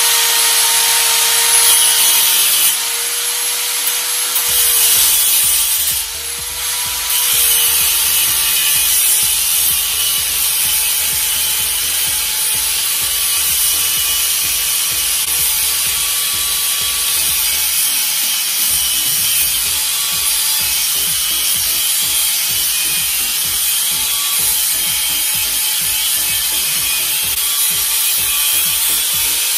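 Electric angle grinder running at full speed with its abrasive disc ground into steel: a steady motor whine under a harsh, continuous grinding hiss. The whine sags briefly a few times as the disc is pressed into the work.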